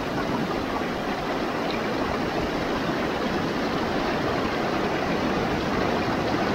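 Mountain stream rushing steadily, an even wash of running water.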